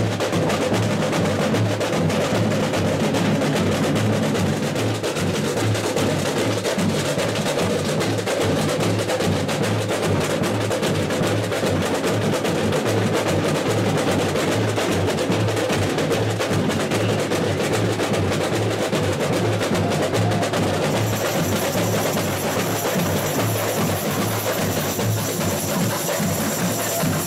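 Samba school bateria playing a full samba groove: surdo bass drums, snare drums and tamborims together in a dense, steady rhythm.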